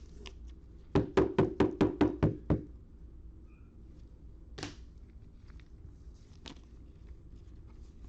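Eight quick knocks on a tabletop, about five a second, followed a couple of seconds later by a short swish and a few light clicks.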